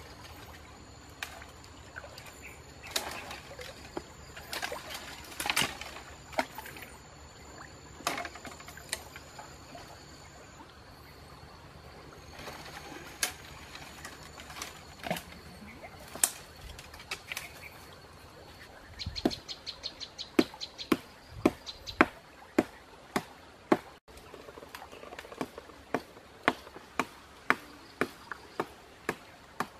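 Dry dead branches cracking and rustling as a person climbs through a tangle of fallen wood, with a faint high insect drone behind. About two-thirds of the way in, a run of sharp wooden knocks begins, quick at first, then about one a second.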